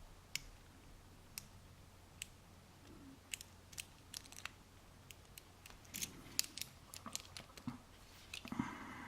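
Lock picking in a cheap dimple-pin cylinder lock: small, sharp metal clicks of the pick working the pins, a few isolated ones at first, then a quicker run of clicks from about three seconds in, and a brief scraping rustle near the end.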